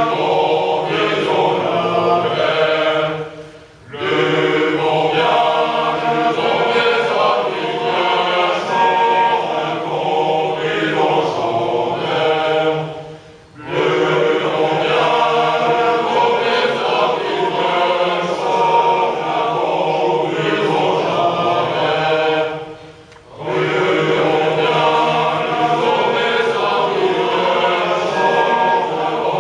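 A large chorus of young men singing a traditional French marching song a cappella. The singing breaks off briefly three times, about every ten seconds, between phrases.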